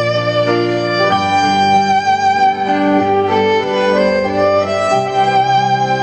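Violin playing a slow melody, holding one long high note from about a second in, over a steady low accompaniment.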